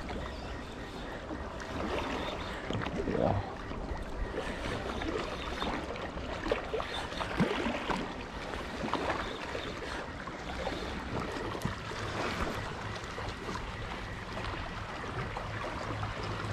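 Water lapping and sloshing at a rocky shoreline over a low steady rumble, with a few short faint splashes or knocks.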